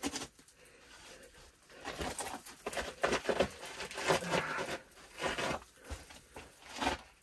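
Shoes and hands scuffing and scraping on the dry clay walls of a narrow slot canyon as a climber works his way down between them, in irregular bursts from about two seconds in.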